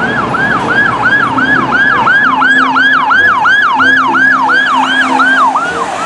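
Electronic ambulance siren in a fast yelp: about three rising-and-falling sweeps a second, fading out near the end.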